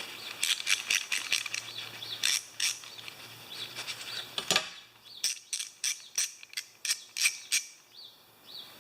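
Craftsman VK-44811 3/8-inch ratchet, freshly cleaned and oiled, clicking as its handle is worked: a string of sharp metallic clicks, scattered at first and then a run of about two or three a second in the second half.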